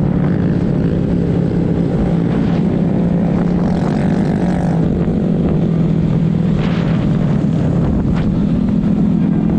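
Motorcycle engine running at a steady cruising speed, heard from aboard the moving bike. The drone holds one pitch throughout, with wind noise and road rush underneath.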